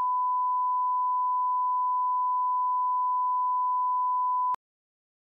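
Broadcast line-up reference tone played over colour bars: one steady, unwavering beep at a single pitch that cuts off abruptly about four and a half seconds in.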